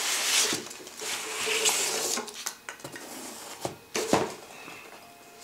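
A long cardboard shipping box being handled and a white cardboard box slid out of it onto a table: cardboard scraping and rustling, with several sharp knocks, the loudest a little after four seconds in.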